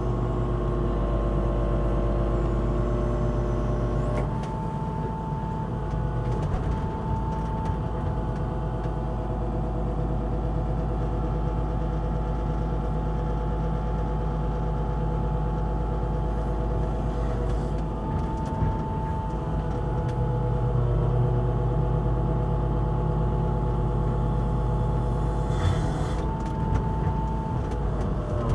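A 2001 John Deere 200LC excavator heard from inside its cab. Its diesel engine runs steadily while the hydraulics work the boom and bucket and swing the machine. A whine comes and goes and changes pitch several times as the controls are moved.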